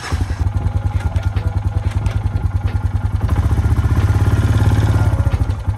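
Honda Foreman 450 ES ATV's single-cylinder four-stroke engine running with an even, rapid beat that grows a little louder about halfway through and eases near the end. There is no clanking or crunching from the transmission: it still shifts and drives properly.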